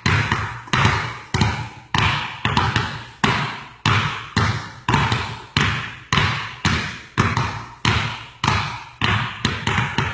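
Basketballs dribbled on a hardwood gym floor in a two-ball dribbling drill. The bounces come in a steady rhythm of about two a second, each one ringing on in the gym's echo.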